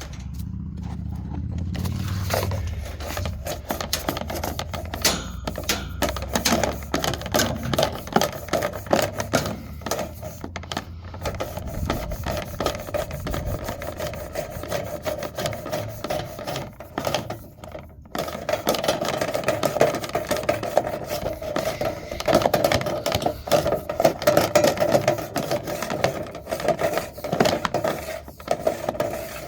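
A dryer vent cleaning tool scraping and rattling inside the vent pipe as it is worked through to clear out lint, with a dense run of rapid clicks and scrapes and a steadier mechanical hum in the second half.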